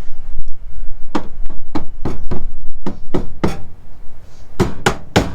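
Hammer tapping plastic push-in trim clips home: a run of about a dozen sharp knocks starting about a second in, with a short pause before the last few.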